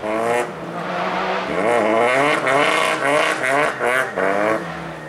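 Rally car engine revving hard, its pitch swinging up and down several times in quick succession, before dropping away near the end.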